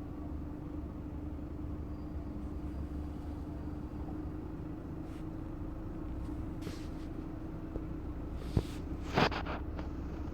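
Steady low background hum with a faint rumble, broken by two sharp clicks close together near the end.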